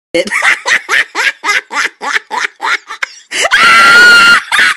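A cartoon character's high-pitched giggling: a quick run of short, falling 'hee' sounds, about four or five a second, then a loud held shriek lasting about a second near the end.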